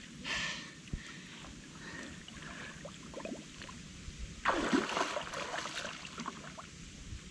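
Water splashing and sloshing in two short bursts, one about half a second in and a stronger one around four and a half seconds in, over a faint steady watery background.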